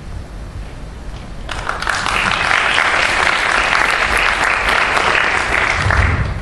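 Theatre audience applauding, starting about a second and a half in and dying away near the end.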